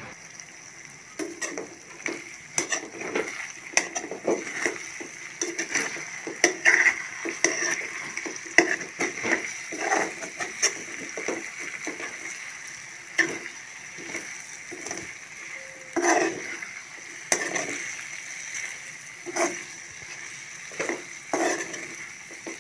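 Metal spatula scraping and knocking against a metal karahi as small diced potatoes are stirred and turned in hot oil, in irregular strokes over a steady sizzle of frying.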